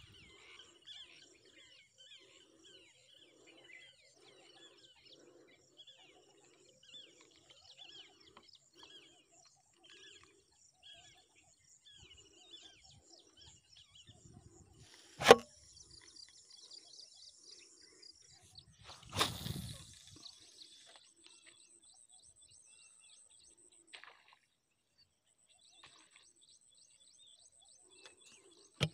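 Faint chirping calls repeating evenly, a little over one a second, through the first half, then a single sharp click about halfway, the loudest sound, and a short rustling scrape a few seconds later.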